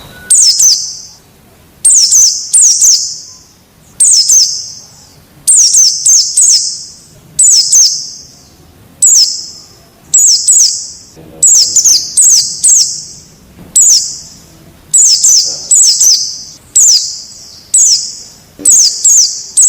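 Wild white-eyes (pleci) calling: loud, sharp high chirps in clusters of one to three, repeating about every second to second and a half.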